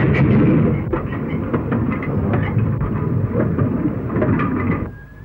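Steam-hauled goods train running along the track, its wagons rumbling, with repeated knocks and clanks from wheels and couplings. The noise drops away sharply near the end.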